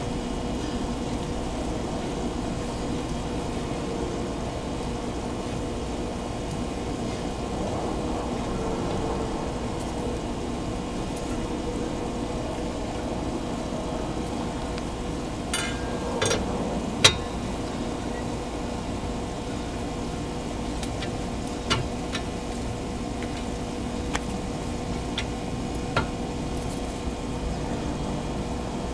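A steady background hum, with a handful of sharp metallic clicks and knocks around the middle and later on, the loudest about halfway through: a wrench on the lug nuts of a Perrin 20 mm wheel spacer as they are tightened by hand, corner to corner.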